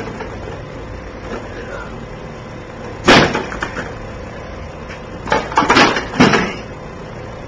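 A lawn mower being beaten or slammed: one loud bang about three seconds in, then a quick run of several more bangs a couple of seconds later.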